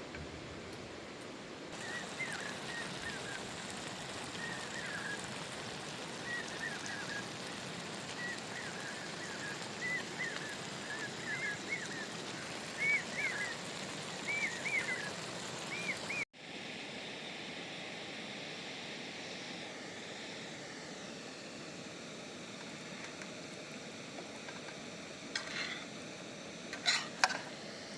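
Chilli chicken sizzling as it fries in a pan, a steady hiss, with a run of short chirps that grow louder over the first half. About sixteen seconds in the sound cuts and its texture changes, and a few sharp clinks come near the end.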